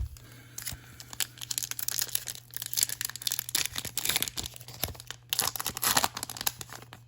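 Packaging of a Topps Chrome trading card hanger box being torn open by hand, with a run of crinkling and tearing for about six seconds.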